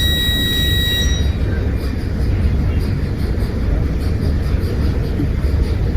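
A sleeping man snoring loudly with a rough, fluttering rattle; his snoring breaks off in brief pauses in breathing, a sign of sleep apnea. A high steady electronic-sounding tone sounds for about a second at the start.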